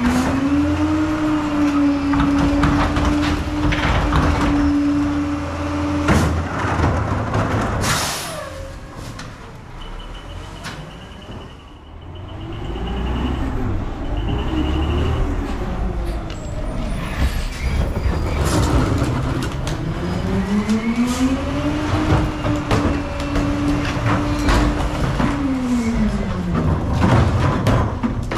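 Rear-loading PakMor garbage truck's engine revved up and held high while the hydraulic packer cycles, then dropping back. This happens twice, with knocks and clanks of trash carts and a hiss of air about eight seconds in.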